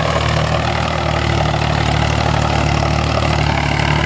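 Indo Farm tractor's diesel engine running steadily at an even pitch.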